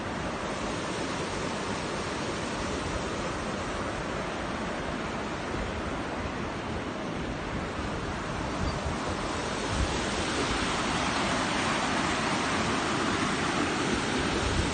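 Steady rush of flowing river water, getting louder in the second half, with low rumbles of wind on the microphone.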